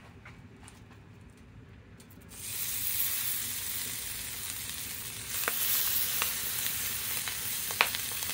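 Shrimp sizzling in butter and olive oil on a hot 17-inch Blackstone griddle. Quiet at first, the sizzle starts suddenly about two seconds in as the shrimp go on and grows louder a few seconds later, with a few sharp ticks.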